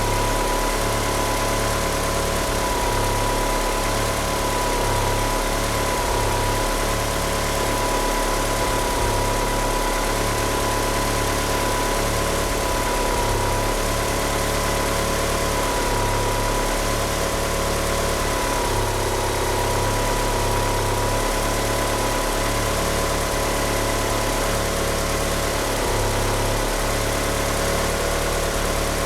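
Turbocharged 2.0-litre four-cylinder engine of a first-generation Mitsubishi Eclipse GSX idling roughly and unevenly on oversized 850cc fuel injectors. A steady high whine rides over it, from the slipping power-steering pump belt.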